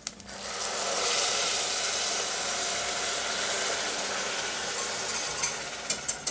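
Cold chicken stock poured from a glass jug into a hot saucepan of browned rice and mushrooms, hissing and sizzling as it hits the pan. The hiss builds within the first second, holds steady, and tapers off near the end as the jug empties.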